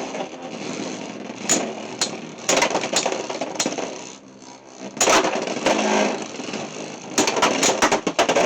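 Beyblade X spinning tops battling in a plastic stadium: a steady whir with many sharp clacks as the tops collide with each other and the stadium walls.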